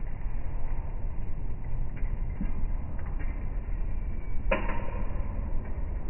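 Steady low rumble of city street ambience, with one short, sharp sound about four and a half seconds in.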